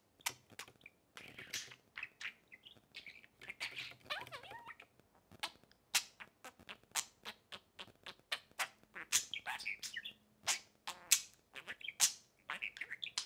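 Pet budgerigars chattering: soft warbling chirps mixed with many short, sharp clicks at an uneven pace.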